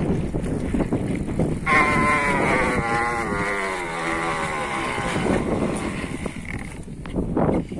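Ursus bicycle kickstand rubbing against the tire of a rolling Romet Rambler mountain bike, giving a squeal of about three and a half seconds that slowly falls in pitch: the kickstand is dragging on the tire like a brake and wearing it. Underneath, the bike rattles and bumps over rough ground, with wind on the microphone.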